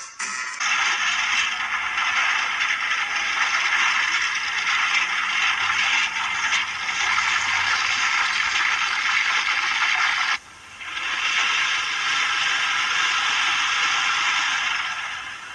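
Steady rushing and rattling noise of a pickup truck driving over a rough dirt track, heard thinly through a television speaker, with a short break about ten seconds in.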